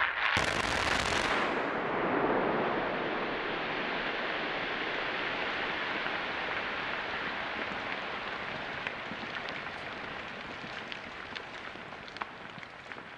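Rock blast in a road cut: a sudden blast at the start, then a long rumble of breaking and falling rock that slowly dies away. Scattered sharp ticks of small rock landing come in the last few seconds.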